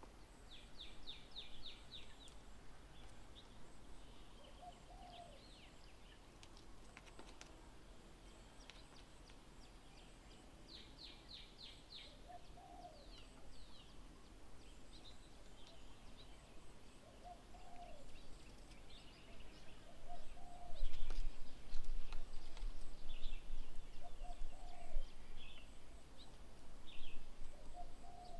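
Birds calling around a garden bird table. A short low call repeats every few seconds, with bursts of rapid, high-pitched chattering notes over it. A low rumble comes in about two-thirds of the way through.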